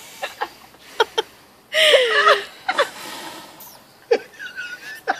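A woman's stifled, muffled laughter through a mouthful of marshmallows: several short breathy outbursts, with one longer pitched, wavering laugh about two seconds in.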